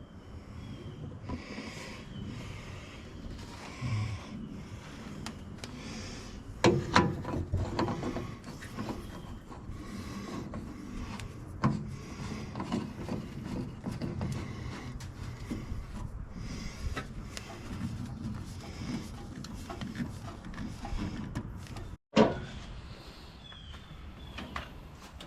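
Irregular clunks, scrapes and rubbing of parts and tools being handled by hand, with sharper knocks about seven, twelve and twenty-two seconds in.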